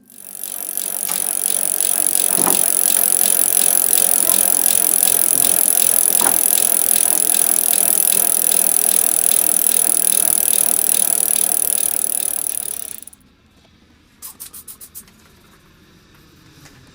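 Bicycle freewheel clicking rapidly as the rear wheel spins: a steady, rattling buzz that cuts off about 13 seconds in. A short run of quick ticks follows about a second later.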